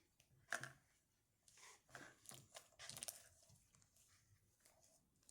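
Hands kneading and folding cloud slime with instant snow worked into it, making short, faint noises at irregular moments.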